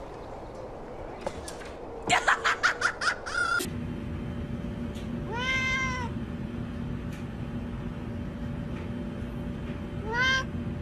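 A domestic cat meows twice, each a drawn-out call that rises and then falls in pitch, about five seconds in and again near the end. Earlier there is a quick run of about ten short chirping clicks over a second and a half.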